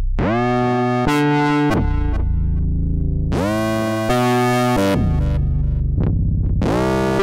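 J4 sampled Jupiter-4 synthesizer playing chords. Three times, at the start, about three seconds in and near the end, the pitch slides up into the chord. Shorter notes come in between, over a low bass.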